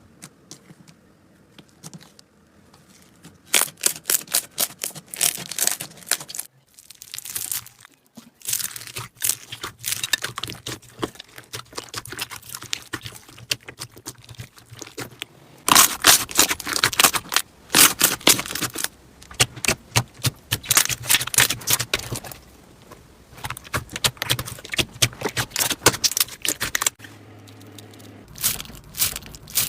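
Slime being squeezed, stretched and poked by hand: dense, irregular runs of crackles and pops in bursts, with a brief lull about seven seconds in.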